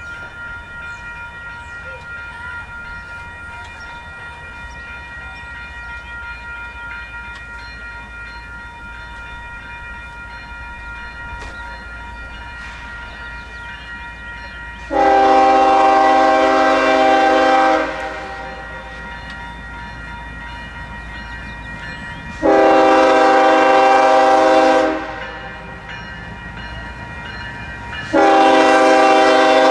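Union Pacific diesel locomotive's multi-chime air horn, heard as two long blasts about halfway through and a third starting near the end, over a lower rumble of the approaching train.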